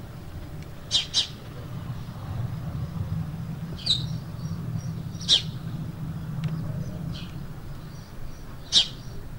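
Bird chirps, short and high-pitched, some single and one quick pair, every few seconds over a steady low hum.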